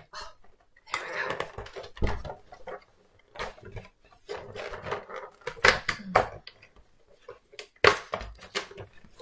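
Cardboard advent calendar door being pried and torn open by hand: irregular scraping, rustling and tearing of paperboard, with a few sharp snaps.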